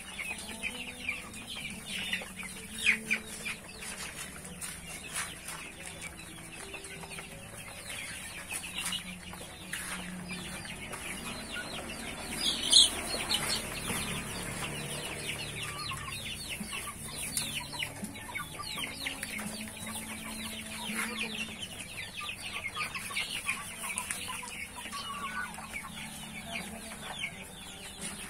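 A flock of young chickens, mostly black Ayam Cemani, clucking, with many short high peeps throughout and one louder call about thirteen seconds in.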